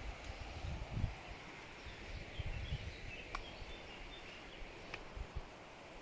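Outdoor ambience: a steady hiss with irregular low rumbles and bumps on the microphone, and a few faint, short, high bird chirps in the middle.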